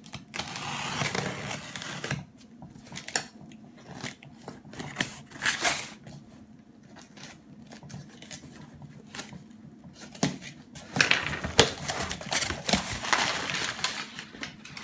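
Cardboard shipping box being opened by hand: packing tape scraped and torn open with a pen, cardboard flaps rubbing and knocking. In the last few seconds, crumpled paper packing rustles loudly as it is pulled out.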